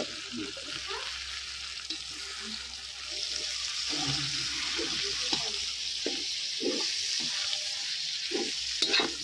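Frying sizzle in a kadhai as boiled peas and cauliflower are stirred into fried onion and turmeric with a slotted metal spatula, the spatula scraping now and then. The sizzle grows louder about three seconds in.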